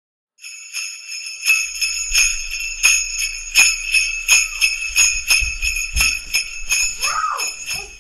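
Sleigh bells jingling, shaken in a steady rhythm of about one and a half shakes a second, with a faint low rumble beneath them in the middle.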